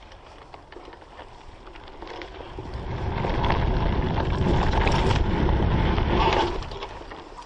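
Wind buffeting a helmet-mounted action camera's microphone, with mountain-bike tyres rumbling over a dirt trail. The rumble swells about two seconds in, stays loud for a few seconds and fades near the end, with scattered clicks and rattles from the bike.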